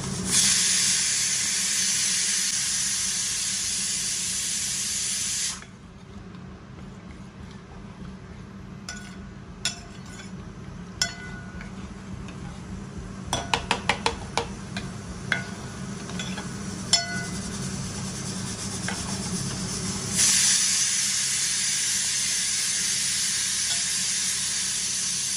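A steel spoon stirring a watery samak (barnyard millet) rice mixture in a steel pot, scraping and knocking against the pot with a few bright ringing clinks, most of them in the middle stretch. A steady hiss covers the first five seconds and returns near the end, cutting in and out abruptly.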